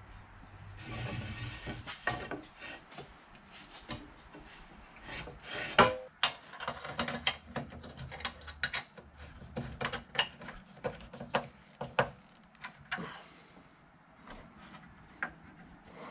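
Irregular knocks, clicks and a scrape of workshop parts being handled, with one louder knock near the middle.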